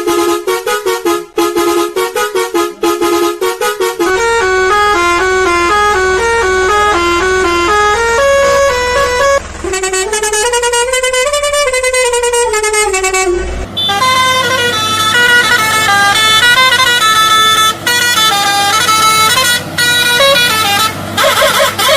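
Indian truck's musical multi-tone horn playing tunes: choppy short notes at first, then a stepped melody, a pitch that rises and falls like a siren about ten seconds in, and another quick run of notes to the end. A low steady hum runs underneath from about four seconds in.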